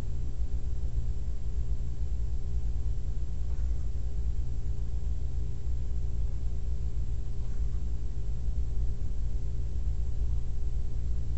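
Steady low rumble and hum with a few faint steady tones, and no voices: the background noise of the room and recording, with faint brief sounds about three and a half and seven and a half seconds in.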